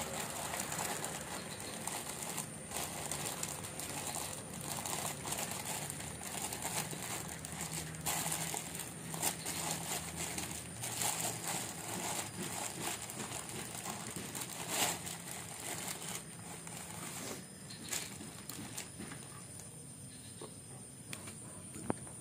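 Thin clear plastic bag of kerupuk crackers crinkling and rustling irregularly as small hands rummage in it, with scattered sharper crackles. It dies down to quieter, sparser handling in the last few seconds.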